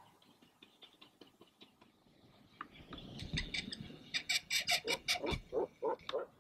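Great cormorants calling: after a quiet start, a rapid series of harsh, guttural croaks, several a second, begins about three seconds in. The series sounds higher and more rattling in the middle and deeper towards the end.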